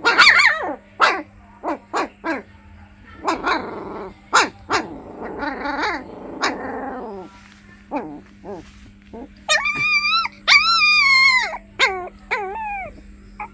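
Puppy crying: a string of short, falling yelps and whimpers, then longer, high whines about ten seconds in, over a faint steady hum.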